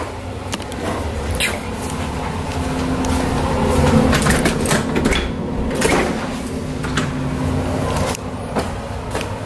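Knocks and rustles of a handheld camera being carried, with a door opening into the garage, over a steady low hum.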